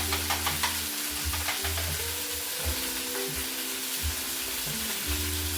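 Food frying in a pan, a steady sizzle, with background music playing underneath.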